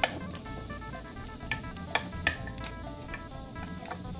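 Egg-coated sticky rice sizzling in a nonstick pan with cup-shaped wells, while a metal spoon presses and stirs it, clicking against the pan many times. Background music plays underneath.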